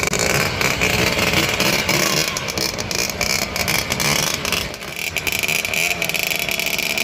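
Motor scooter engine running and revving, its pitch rising and falling.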